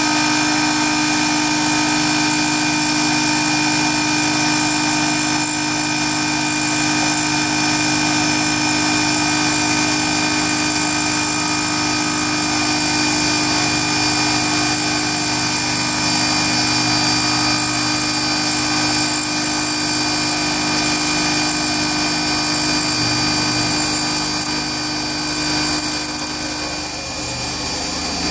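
CNC router spindle at 18,000 rpm driving a single-flute carbide end mill through aluminium plate: a steady, high, multi-toned whine over the hiss of the cut. The tone shifts a little and eases slightly near the end.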